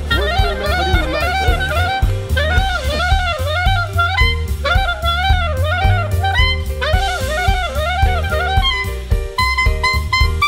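Instrumental background music: a lead melody repeating short rising-and-falling phrases over a steady drum beat and bass, with a held note coming in near the end.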